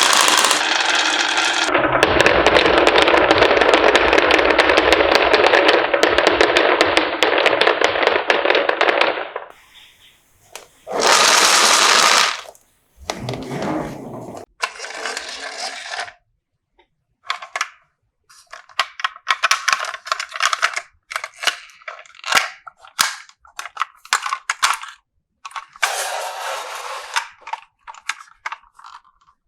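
Marbles rattling and clattering down a wooden marble run, a dense rapid clicking for the first nine seconds or so, then a brief louder rush, then scattered runs of clicks as fewer marbles roll and knock along the track.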